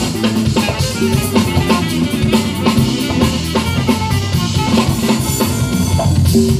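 Live jazz band playing: electric bass lines under congas and drum kit beats.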